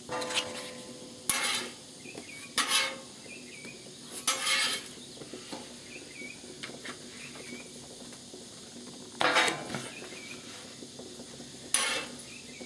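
A metal spatula scrapes across the steel top of a Blackstone griddle in five short strokes, sliding under pancakes to lift and stack them.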